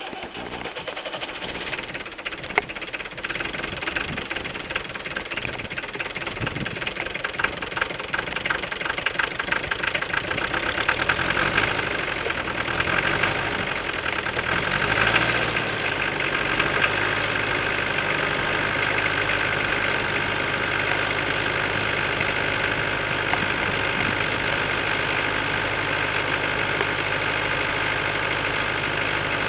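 International Harvester 250 D tractor's diesel engine running with a knocking clatter that grows louder over the first fifteen seconds or so, then settles into a steady idle.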